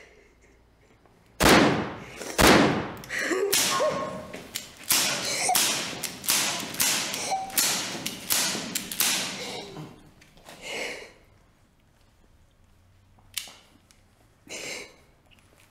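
Hard violent impacts: two sharp bangs about a second apart, then a rapid run of heavy blows, about two a second, that fades out, and two last short hits near the end.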